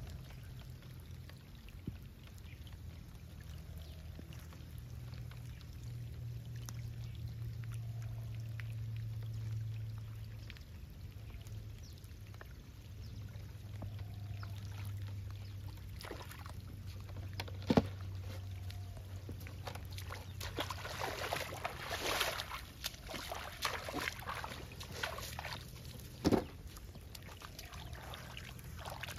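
Shallow river water splashing and trickling as hands and feet move in it, busier in the second half, with two sharp knocks, one a little past halfway and one near the end, over a low steady hum.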